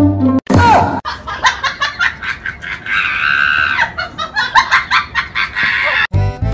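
High-pitched, cackling human laughter in quick, rapid pulses, with a longer held high note about three seconds in.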